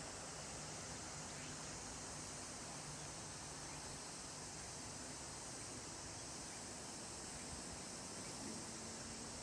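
Steady river noise of flowing water, with a continuous high-pitched insect drone over it.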